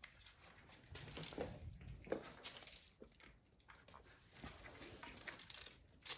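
Kittens playing: faint scattered scratches, taps and scuffles of small paws on a cardboard scratcher and a hard floor as they bat a toy about.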